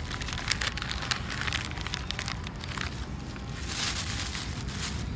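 Brown paper food wrapper crinkling and crackling as it is folded up by hand, followed about three and a half seconds in by a thin plastic bag rustling as the wrapped paper is pushed into it.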